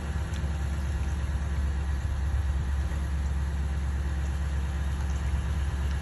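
Evinrude outboard motor on a bass boat running steadily in gear, a low, even engine hum, as it power-loads the boat up onto its trailer.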